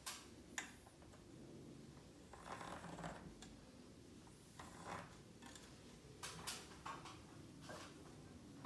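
Faint handling noises: a few sharp clicks and taps, with short scraping rustles in between.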